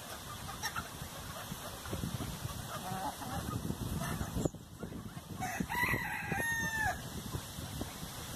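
Bantam rooster crowing once, about halfway through: a single long call that drops at the end, over hens clucking while they feed.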